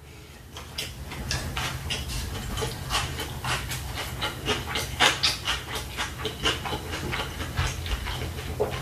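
Close-miked chewing of a mouthful of fried rice: irregular wet smacks and clicks of the mouth, several a second, over a steady low hum.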